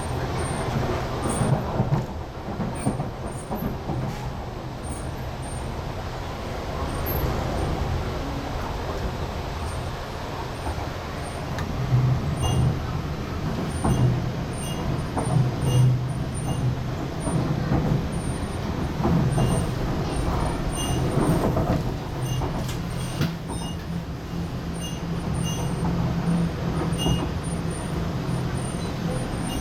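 Inside an MTR R-Train electric multiple unit running on the East Rail line: a steady low rumble of the wheels on the track, with a low hum that swells in places.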